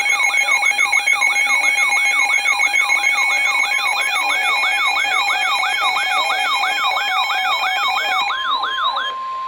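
Electronic alert siren sweeping up in pitch over and over, about three times a second, over steady pulsing beeps. Near the end it cuts to a short, steady single tone like a weather radio alert tone.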